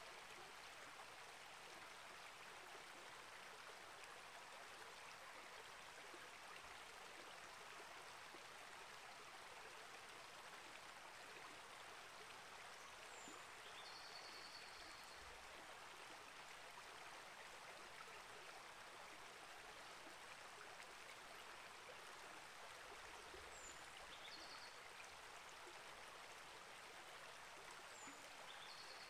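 Small rainforest creek flowing steadily, a soft even rush of water. A short, high bird call sounds three times, each a quick downward note followed by a brief held whistle.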